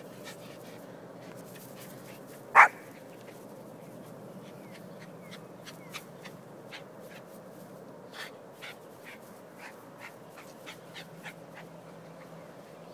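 A dog barks once, loudly, about two and a half seconds in, over a steady low hum and many faint short chirps.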